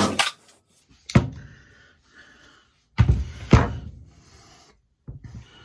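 The last of a fast run of recoil-starter pulls on a Stihl MS230 chainsaw with a compression gauge in the plug hole, stopping just after the start; then a few separate clunks from handling, about a second in, two close together around three seconds, and one near the end.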